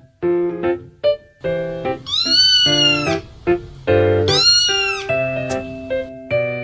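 A kitten meowing twice, two long calls that rise and then fall in pitch, about two seconds in and again about four seconds in, over piano music.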